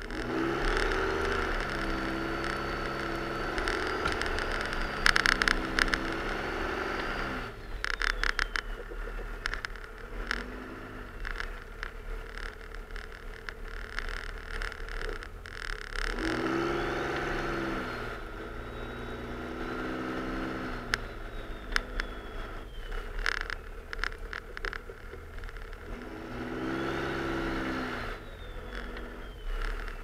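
Cummins turbo-diesel engine of a Dodge Ram 2500 pulling hard three times as the truck pushes heavy, dense snow with its V-plow. Each push rises in pitch with a high whistle and then falls back toward idle. Scraping and crunching come from the plow blade working the packed snow.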